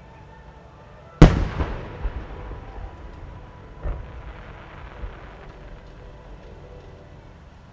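A 12-inch aerial firework shell bursting with one sharp boom about a second in, followed by fainter booms echoing back over the next few seconds as the rumble dies away.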